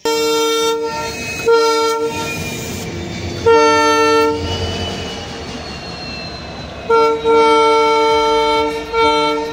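Indian Railways diesel locomotive sounding its horn in a series of blasts as it pulls away: three short blasts in the first four seconds, then a short one, a long one and a short one near the end, with the engine's running rumble in between.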